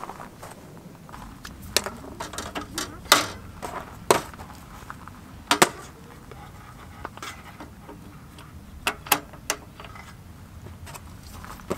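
Irregular sharp clicks and knocks of metal parts on a portable gas camp stove being handled at its gas canister fitting, with pauses between them.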